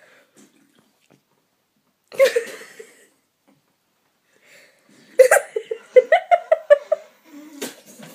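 A person laughing: one short burst of laughter about two seconds in, then a longer run of quick giggling pulses from about five seconds in.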